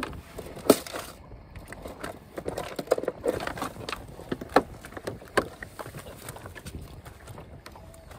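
Irregular knocks and taps on a small boat, the loudest just under a second in, with a run of softer taps around the three-second mark.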